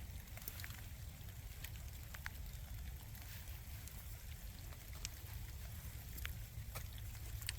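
Rain falling, heard as scattered sharp raindrop taps over a steady low rumble.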